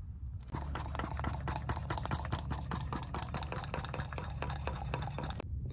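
Brake fluid running through a bleeder hose and dripping into a plastic catch bottle at the caliper during brake bleeding: a fast, irregular patter of small drips and gurgles.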